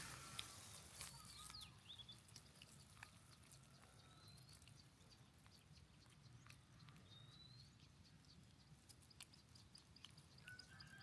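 Faint, brief high chirps and squeaks from a small animal, a few with a short upward slide, among scattered light clicks over a low steady hum.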